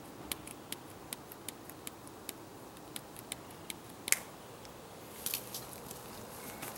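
Scissors snipping through plastic hardware cloth mesh, a sharp snip about every half second as each strand is cut, the loudest about four seconds in. A brief rustle of the mesh follows a second later.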